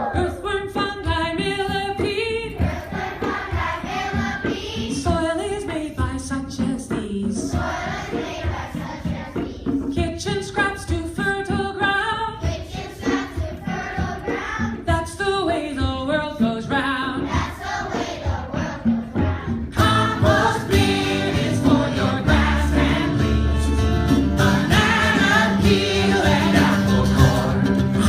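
Vocal music with voices singing together like a choir over a rhythmic backing, becoming fuller about twenty seconds in.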